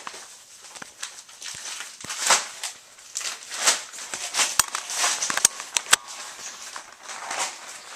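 Rustling and scraping of a phone being handled, with fingers and clothing rubbing over its microphone: a string of short swishes and a few sharp clicks.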